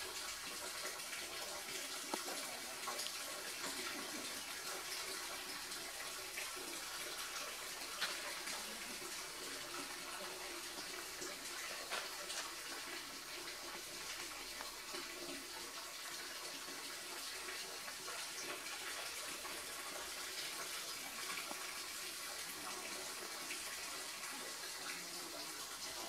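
A steady, even hiss, with a few faint clicks about two, eight and twelve seconds in.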